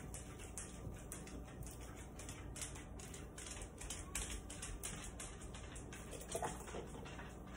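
Faint clicks and taps of a ladle working in a stainless stockpot and against a plastic canning funnel on a mason jar, with a louder soft splat about six seconds in as a ladleful of hot tomatoes goes into the funnel.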